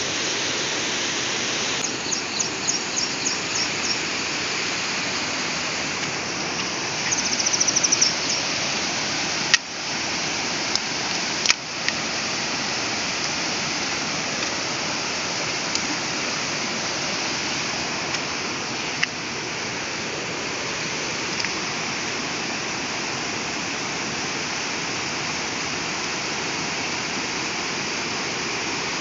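Steady rush of water flowing in a shallow stream. Short runs of high chirps come near the start, and two sharp clicks about two seconds apart come about a third of the way in.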